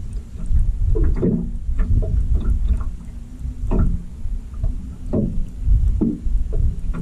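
A small boat on the water: a steady low rumble with water slapping against the hull every second or so.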